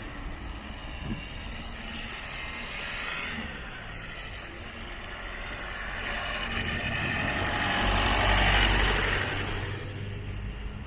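Rushing wind and motion noise on the microphone while travelling along a road. It swells gradually to its loudest about eight seconds in, then eases off.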